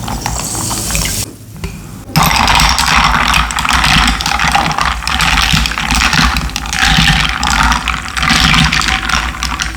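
Coca-Cola being poured into a glass of mixed soft drinks. A short hiss comes first, then from about two seconds in a loud, steady fizzing pour of the carbonated drink.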